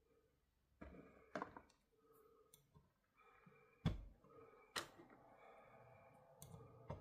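Parts of a small steel clamp vise being handled and fitted: scattered sharp clicks and knocks, the loudest about four seconds in.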